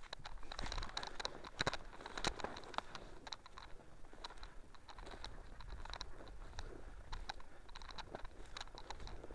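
Footsteps through dry bog vegetation, with an irregular run of crunches and small crackles as grass, heather and twigs give underfoot.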